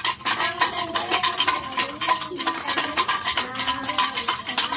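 A small handheld metal shaker jingled in a fast, steady rattle, with children's singing voices under it.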